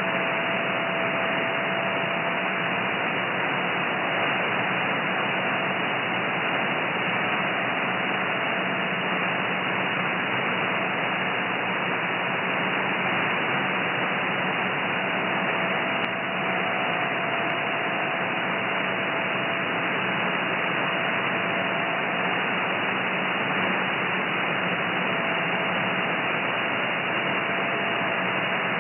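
Shortwave receiver hiss from the 30 m amateur band in upper sideband, steady and cut off above about 3 kHz. A faint steady tone in the middle of the hiss fades in and out several times: a weak JT9 digital-mode signal.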